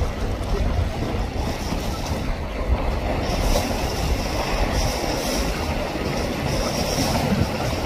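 Wind buffeting the microphone over breaking surf and a motorboat running hard through rough waves, a steady rumbling hiss; a higher hiss of spray joins about three seconds in.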